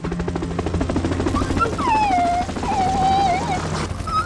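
A dog whines in a long call that slides downward, then wavers, over a fast, steady chopping rhythm.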